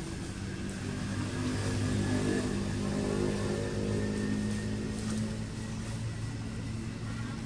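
A motor vehicle's engine running nearby with a steady low hum. It grows louder in the middle and then eases off, like a vehicle passing.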